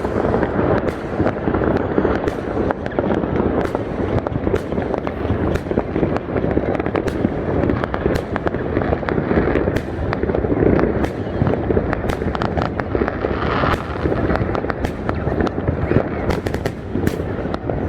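Fireworks display: a continuous barrage of sharp bangs and crackles from bursting shells, with a crowd's voices beneath.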